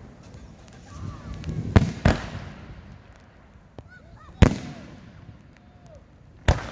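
Aerial firework shells bursting close overhead: two sharp bangs in quick succession about two seconds in, another a little past the middle and one near the end. Short honking calls that rise and fall in pitch come between the bangs.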